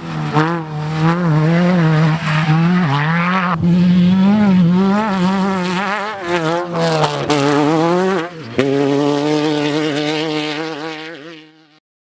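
Off-road race vehicle engine running hard, its pitch wavering up and down, with two sudden jumps in pitch. The sound fades out near the end.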